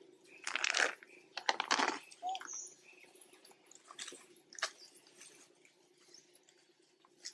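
Dry fallen leaves crunching in two short crackling bursts, followed a couple of seconds later by a few lighter clicks, with faint bird chirps.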